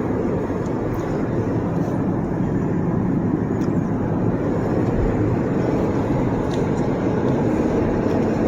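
Steady road and tyre noise with engine hum inside a car's cabin at highway speed: an even, low rumble.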